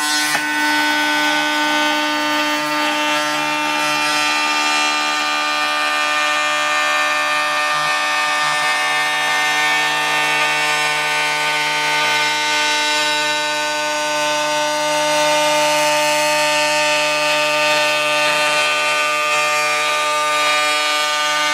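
Table-mounted router running a flush-trim bit, trimming a cabinet's face frame edge flush with the cabinet side: a loud, steady motor whine with the bit cutting wood.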